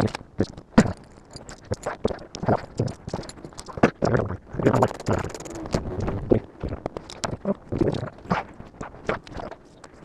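Irregular clicks, knocks and scraping of hands and tools working on plastic trim and wiring under a car dashboard, several sharp taps a second with a stretch of rustling and scraping around the middle.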